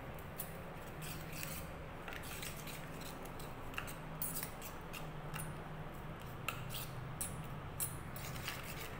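Steel spoon scraping and clinking against a stainless-steel bowl while stirring ground spices and water into a paste, in quick irregular strokes over a low steady hum.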